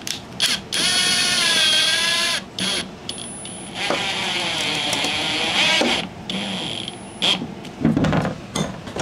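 Hercules 20V cordless drill/driver driving screws into a wall: a couple of quick blips of the motor, then two longer whining runs of about a second and a half and two seconds, and a last short blip near the end.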